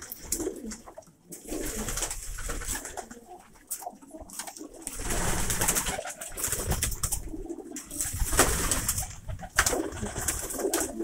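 Domestic pigeons cooing on and off in a small wooden loft, with bursts of rustling noise and a few light knocks.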